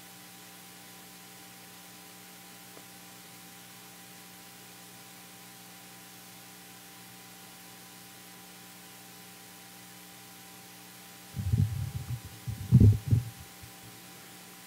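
Steady electrical hum from the microphone and sound system. Near the end comes a cluster of loud, low thumps lasting about two seconds: handling noise as the microphone on its boom stand is moved.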